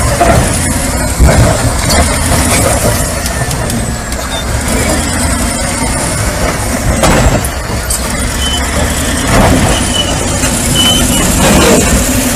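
A heavy vehicle's engine running, with loud, continuous rumbling mechanical noise.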